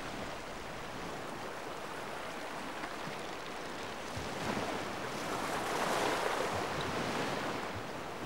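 Sea waves washing onto the shore, a steady rush that swells to its loudest a little past halfway and then eases back.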